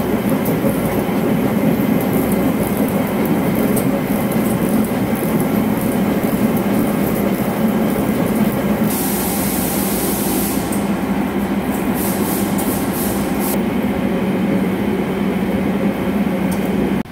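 CNC vertical lathe turning the outer diameter of a large steel disc: a steady, loud cutting noise over the machine's low hum, with scattered ticks. A high hiss joins in about nine seconds in and stops under two seconds later.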